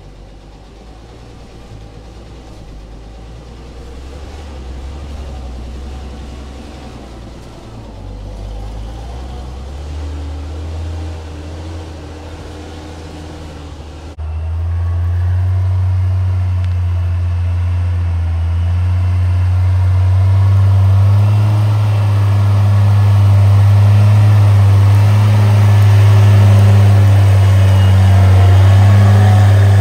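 Engine of a 1978 Bedford M Series 4x4 truck with a petrol engine, running under load as the truck drives across a creek, growing louder as it approaches. After a sudden cut about halfway in it is heard close up, louder and steady. The engine has just had its plugs, points and fuel filter serviced, and the owner suspects it is running with the ignition timing a bit retarded.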